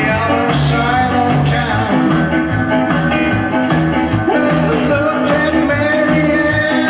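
Loud dance music from a sonidero sound system, with a steady bass beat under a held melody line.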